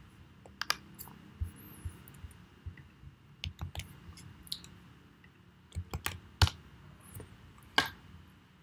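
Irregular keystrokes and clicks on a computer keyboard and mouse, with a few louder key presses in the second half.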